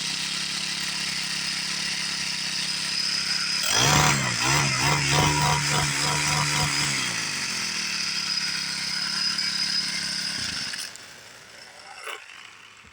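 Small engine of a weed-eater-type tool idling, revved up for about three seconds some four seconds in, then falling back to idle and shut off near the end, followed by two light clicks. It is running on freshly replaced fuel lines.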